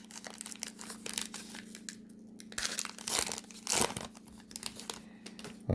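Baseball-card pack wrappers being torn open and crinkled by hand, in scattered crackles with a few louder rips near the middle, over a steady low electrical hum.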